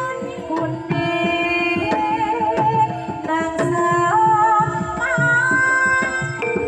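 Javanese gamelan playing a gending: struck metallophones ring steady notes over quick hand-drum strokes, with a sinden's wavering voice singing along.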